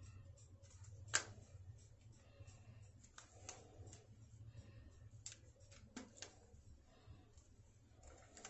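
Near silence with faint, scattered clicks and rustles of hands smoothing hair back and gathering it into a ponytail; one sharper click about a second in.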